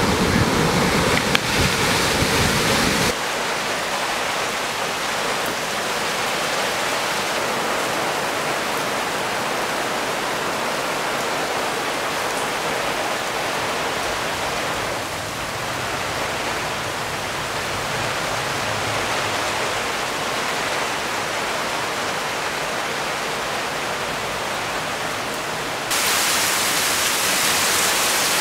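Surf breaking on a beach, cut after about three seconds to a steady, even rushing hiss. Near the end it cuts to rain falling, louder and brighter.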